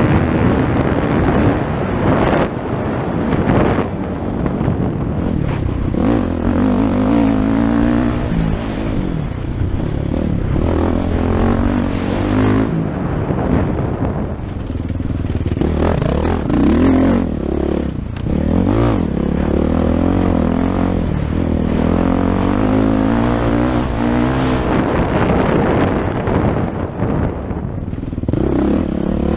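Motocross bike engine heard from on board, revving up and falling back again and again as the rider accelerates, shifts and brakes around the dirt track.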